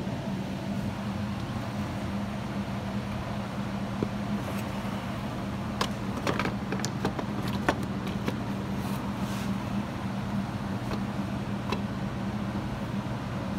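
Small metal speed nuts being started by hand onto plastic light studs: a cluster of light clicks and taps about halfway through, with a few more scattered. Under it runs a steady low hum.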